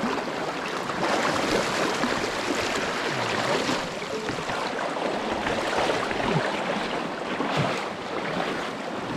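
Steady rushing of a mountain stream flowing over rocks.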